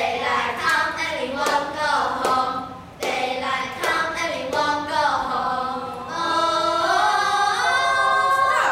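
A group of children singing together in unison, ending on a long held note.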